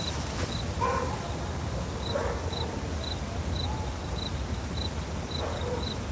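A dog barking a few times, with a cricket chirping in a steady rhythm about twice a second from about two seconds in, over a steady low rumble.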